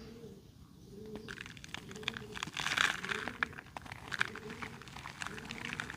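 Dry red mud crumbling: a dense crackle of small cracks and crunches that starts about a second in and is loudest a little before the middle.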